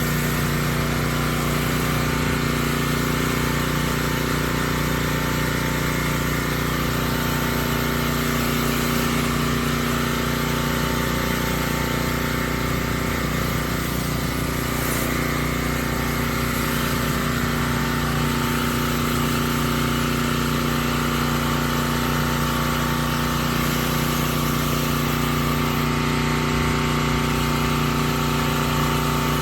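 Gas pressure washer engine running steadily at one pitch, with the water spray hiss of the surface cleaner working.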